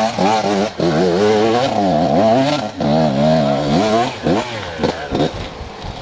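Enduro dirt bike engine revving hard under load on a steep hill climb, the revs rising and falling again and again with the throttle. It weakens about four seconds in and dies away around five seconds in as the bike goes down.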